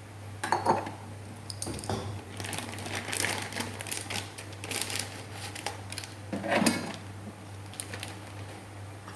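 Rapid clicks, clatter and rustling of kitchenware and packaging being handled while batter ingredients are set out, over a steady low hum.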